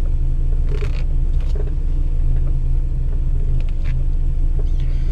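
Car driving over a rough road: a steady low engine and road rumble with several short knocks from the suspension, a rattle as if something is loose, which the driver suspects comes from a shock absorber or a suspension arm on the left side.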